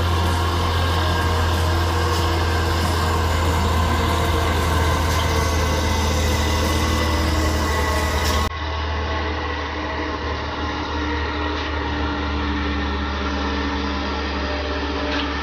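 Heavy diesel engine of a multi-axle box-girder transporter running steadily as the loaded vehicle rolls slowly past, a deep continuous hum. About eight and a half seconds in, the sound cuts and becomes slightly quieter and duller.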